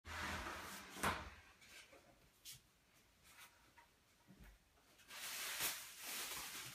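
Quiet handling sounds in a small tiled bathroom: a sharp knock about a second in, a soft thud as the glass shower door is moved, then cloth rustling near the end as a towel is handled.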